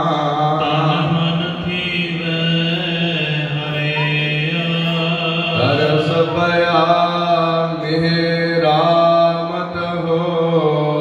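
Gurbani sung as a chant in long held, sliding notes over a steady drone.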